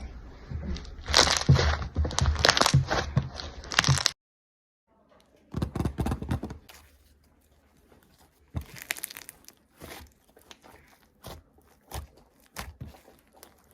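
Homemade glue slime being squeezed and poked by hand, a run of sticky crackles and pops with soft squelches. It cuts out abruptly for about a second near the four-second mark, then goes on as sparser clicks and pops.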